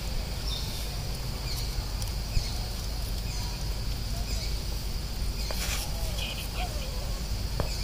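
Steady high-pitched drone of an insect chorus, with a few faint short chirps and a single sharp click about two and a half seconds in.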